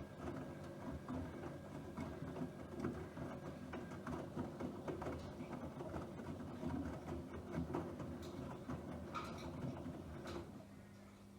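Bosch WFP3231 front-loading washing machine running, a ticking mechanical whirr that stops about ten seconds in, leaving a steady low hum and a few clicks.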